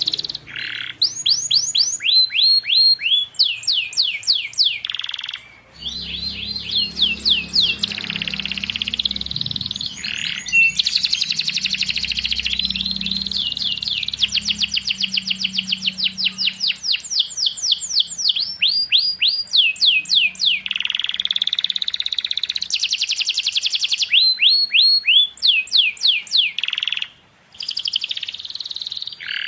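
Domestic canary singing a long, loud song of fast trills and whistled notes that sweep down in pitch, broken only by two short pauses.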